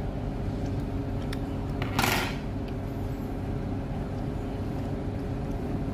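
Steady low hum, with one short rustling scrape from handling the connector about two seconds in.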